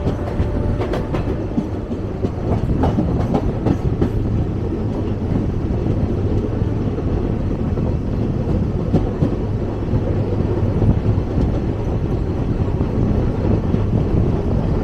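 Indian Railways passenger train running along the track, heard from aboard the coach: a steady low rumble of wheels on rails, with a run of clacks as the wheels pass rail joints in the first few seconds.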